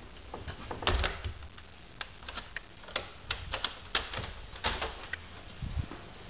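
Irregular sharp clicks and taps, about a dozen over a few seconds, with a few dull low thumps among them.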